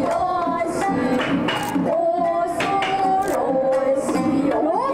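Kabuki dance-drama accompaniment in the tokiwazu style: a singer chanting in long, wavering held notes over sharply plucked shamisen.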